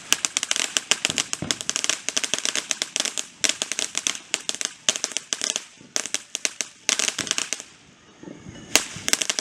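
Fireworks crackling: a rapid, dense run of sharp cracks and pops in clusters, thinning out about eight seconds in before one louder crack near the end.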